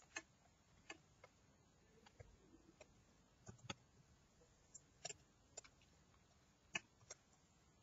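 Faint, irregular clicks of a computer mouse, about a dozen spread over several seconds, with near silence between them.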